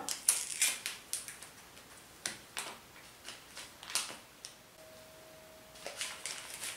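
A small paper sachet of baking powder being torn open and handled: a scatter of light crinkles and sharp ticks, then a spoon scraping inside it near the end. A faint steady hum sounds from about five seconds in.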